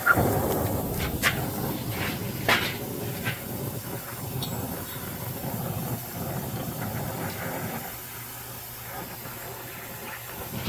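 Soldering torch flame hissing steadily as brass is heated for silver soldering, with a few sharp clicks in the first few seconds.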